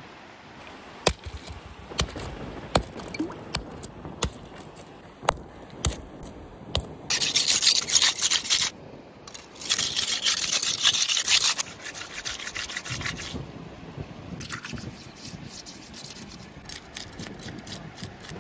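Sharp taps at first. Then come two loud spells of a steel knife blade scraped hard against a river rock, followed by a run of quicker, lighter scraping strokes. Near the end the knife scrapes scales off a fish.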